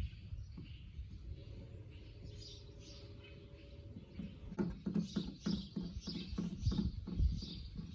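Birds chirping in the background. About halfway through, a run of irregular knocks and thuds begins and is louder than the chirping.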